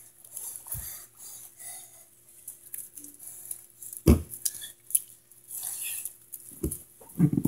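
Scattered light knocks and patter over a faint steady hum, with a sharp thump about four seconds in as a hand comes down on the plastic lid of a large trash can. Near the end come heavier thuds of bare feet stepping close to the microphone.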